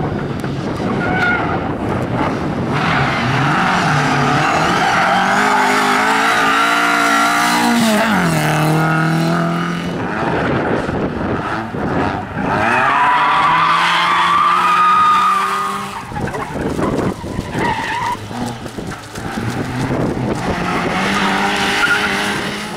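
Rally car engines revving hard as several cars pass one after another, each engine climbing in pitch as it accelerates, then dropping sharply as the driver lifts off or changes gear.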